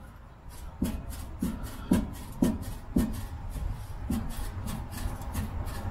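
A run of about nine sharp knocks, roughly two a second, each with a short low ring, as the rusted slip joint between the muffler and midpipe of a 2015 Ford F-150's exhaust is forced to separate.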